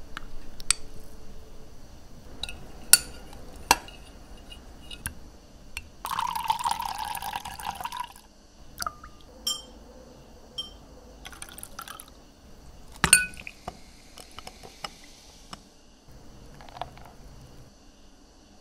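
Drink being made in a glass tumbler: a metal spoon clinks against the glass several times, liquid pours into the glass for about two seconds, and a long metal spoon stirs with light taps. About 13 seconds in comes the loudest clink, followed by a couple of seconds of soft hiss.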